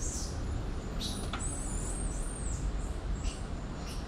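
Short high-pitched animal chirps and a few sliding whistles about a second in, over a steady low rumble.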